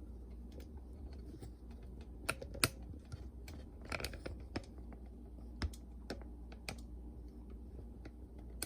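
Scattered light clicks and taps of hands working on the boombox's plastic inner frame and cable connectors, irregular and a few a second, over a steady low hum.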